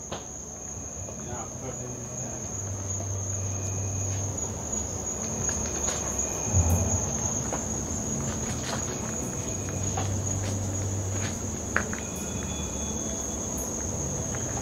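Crickets chirring in one steady, unbroken high-pitched trill, with occasional faint clicks and knocks beneath it.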